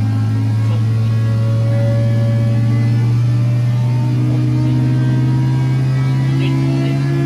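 Edgeperformance EPeX300Ti engine running under load on an engine dyno during a power sweep, its revs climbing steadily from about 6,400 to 7,900 rpm so its note rises slowly in pitch. It is heard from the control room through the test cell's window.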